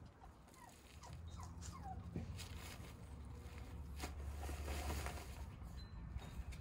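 Shiba Inu puppies playing around a fabric play tunnel: a few short, high falling squeaks in the first two seconds, with scuffling and rustling throughout. A steady low rumble runs underneath.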